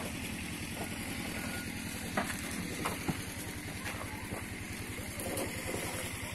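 A motor running steadily at idle, a low even hum, with a few faint clicks over it.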